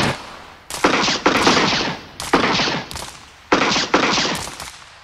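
Gunfire: about five loud shots, each a sharp crack with a trailing echo, coming in pairs roughly a second apart.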